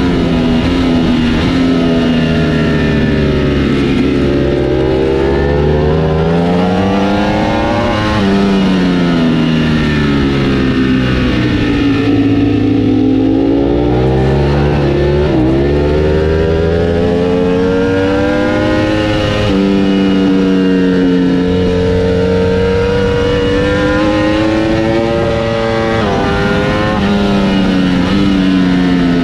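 Onboard sound of a Ducati V4 superbike ridden hard on a race track: the engine note climbs under acceleration and falls under braking several times, with sudden steps in pitch at the gear changes. Wind rush runs under the engine.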